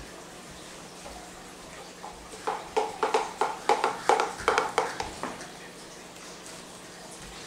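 Knife chopping on a cutting board: about a dozen quick strokes, roughly four a second, starting about two seconds in and stopping about three seconds later.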